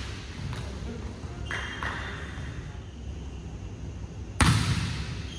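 A single sharp volleyball impact about four seconds in, a loud slap that rings on through the reverberant indoor hall, over a low background of court noise.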